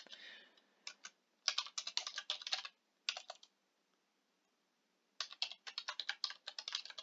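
Typing on a computer keyboard: a few stray keystrokes, then quick runs of keystrokes, a pause of nearly two seconds midway, then another longer run.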